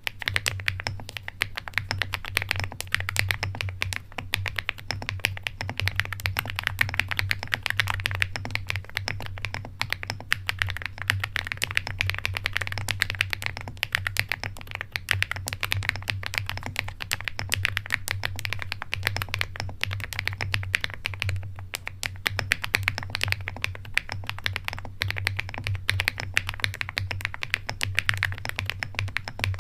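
Continuous fast typing on a fully foam-filled AHOLLC mechanical keyboard with Keygeek Mirror Lake switches: a dense, steady stream of key clicks that begins abruptly.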